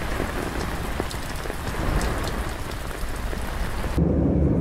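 Steady rain falling on leafy shrubs and tree stumps, a dense hiss full of fine drop ticks. About four seconds in it cuts off abruptly to the low, steady drone of an airliner cabin in flight.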